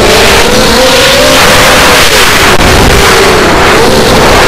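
Loud whine of a ZMR250 quadcopter's brushless motors and propellers, its pitch rising and falling repeatedly with throttle as it manoeuvres, under heavy wind rush on the onboard camera's microphone.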